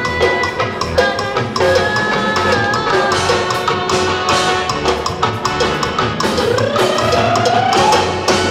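Live band playing amplified dance music: a drum kit keeps a steady beat under electronic keyboards while a woman sings into a microphone. A note rises near the end.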